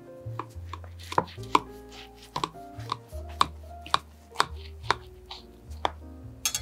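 Knife cutting through a baked pancake casserole, its blade tapping sharply against the glass baking dish a dozen or so times, roughly twice a second, over soft background music.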